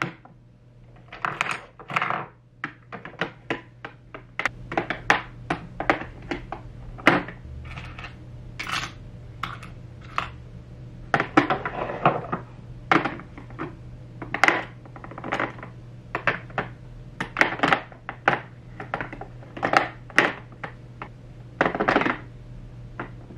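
Plastic makeup tubes and small cosmetic items clicking and clacking against a clear acrylic drawer as they are set in one by one: a long run of light, irregular knocks.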